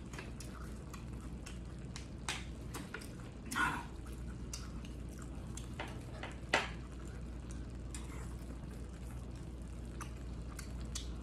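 Eating and drinking sounds: wet swallowing and mouth noises, with scattered sharp clicks of chopsticks against a stainless steel pan.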